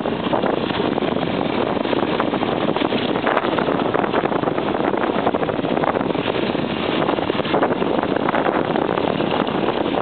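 Trail motorcycle riding fast on a gravel road, heard from on board: the engine runs steadily under heavy wind rush on the microphone, an even noise with no letup.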